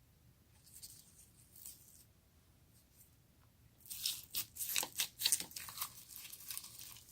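Slime being squeezed and stretched by hand, giving a run of crackling pops; faint at first, then louder and denser from about four seconds in.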